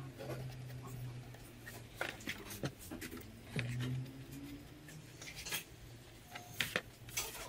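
Balsa wood sheets being handled on a worktable: scattered light taps and clicks as the sheeted wing panel is moved and set down.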